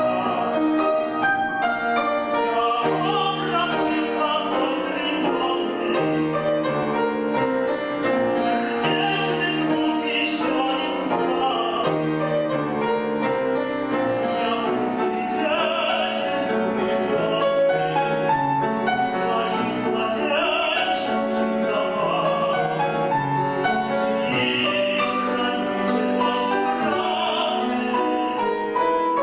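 Male classical singer performing in operatic style, accompanied by piano.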